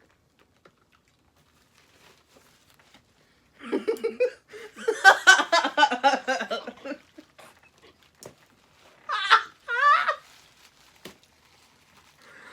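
People laughing hard, a burst of several seconds starting about four seconds in, followed by two short vocal squeals or exclamations near the middle.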